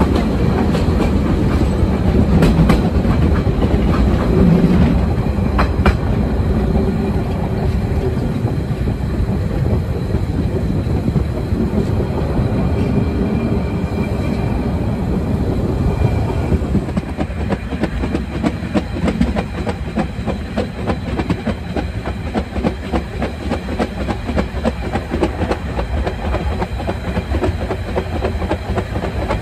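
Narrow-gauge steam train running, with the wheels clattering over the rails. The sound becomes thinner and a little quieter about two-thirds of the way through.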